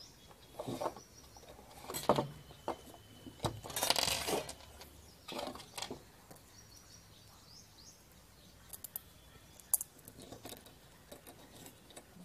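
Small steel washers and a bolt clinking and being handled on a wooden tabletop: scattered light metallic clicks and rustles a few seconds apart.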